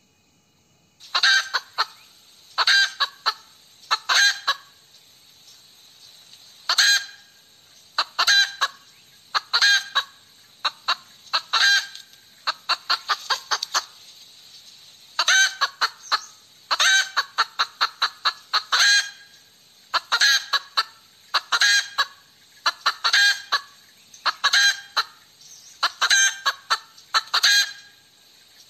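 Hen cackling: bouts of loud, sharp squawks that begin about a second in and repeat with short pauses between them.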